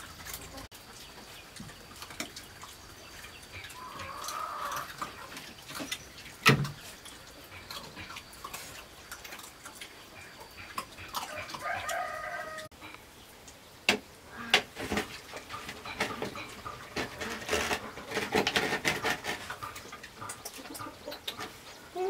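Chickens clucking and calling, with short pitched calls about four seconds in and again around eleven to twelve seconds in. A sharp knock sounds about six seconds in, and light clicks and clatter come through the second half.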